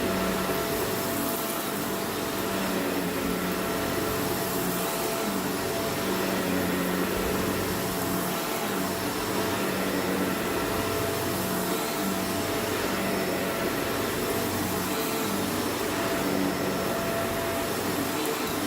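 Vacuum cleaner running steadily, a continuous motor hum and airflow rush as it sucks up dirt.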